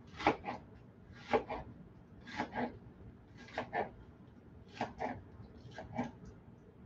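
Knife cutting up lettuce: six pairs of crisp chops, about one pair a second.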